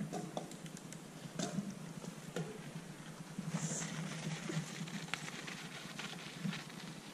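Mountain bikes rolling off over a dry dirt trail: faint scattered clicks and crunches from tyres and bike parts over a low steady hum, with one short high-pitched chirp about three and a half seconds in.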